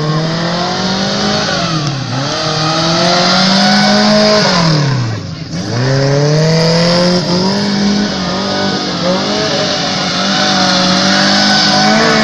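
Car engine revved hard and held at high revs, its exhaust spitting flame. The note falls away and climbs back up twice.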